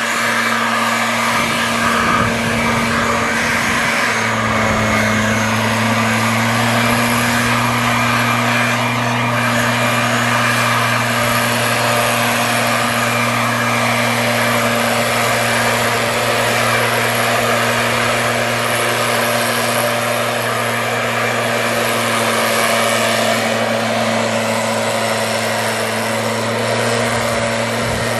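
Stihl backpack mist blower running steadily, its engine holding one even note under a loud rush of air as it blasts pesticide spray into fir trees.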